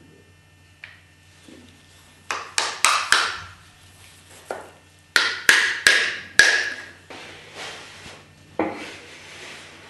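Hammer tapping in a woodworking shop: two quick runs of four sharp taps, each with a short ringing note, then a single tap near the end.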